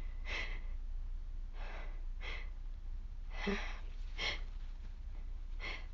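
A woman with a cold takes a series of short, sharp, breathy breaths, about six in all, as a sneeze builds. There is a brief squeaky catch in her hoarse voice about three and a half seconds in.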